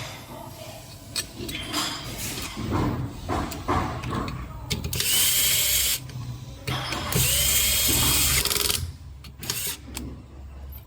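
A power tool, drill-like, running in two short bursts of one to two seconds each, with knocks and clicks of handling before and between them.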